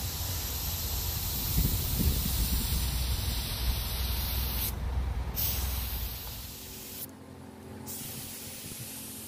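Gravity-feed paint spray gun on a compressed-air hose, hissing steadily as it sprays paint, cutting out twice briefly. A low rumble lies under it for the first several seconds.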